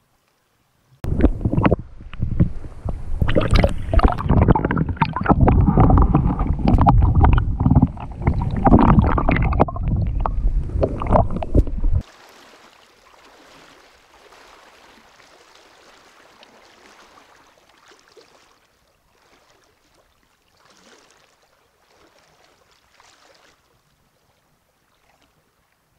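Loud, close splashing and sloshing of river water around a trout in a rubber landing net, irregular and choppy, for about eleven seconds before it cuts off suddenly. After that, a faint steady rush of flowing water that dies away near the end.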